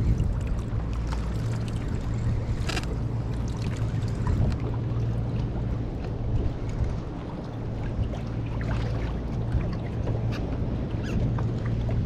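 Water sloshing and slapping around a kayak on choppy sea, with wind on the microphone and a steady low hum underneath. A few sharp splashes or knocks stand out, the clearest a little under three seconds in.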